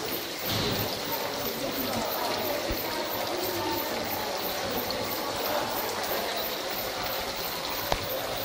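Fountain water falling from a moss-covered rock and small jets steadily splashing and trickling into a stone pond. A single sharp click sounds near the end.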